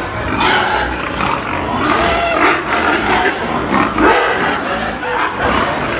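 A group of pigs grunting and squealing, with many calls overlapping in a continuous din.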